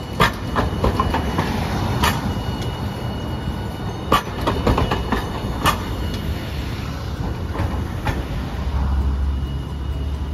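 Hiroden Green Mover LEX low-floor tram rolling past close by over street track, with a steady low rumble and a sharp clunk from the wheels over the rail joints and junction about every two seconds. The clunks stop a little past halfway, leaving a steadier low rumble.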